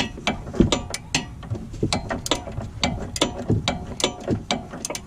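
A 15 mm wrench clicking on a tight lock nut as it is worked off a sway bar end link stud: a run of sharp, irregular metal clicks, several a second.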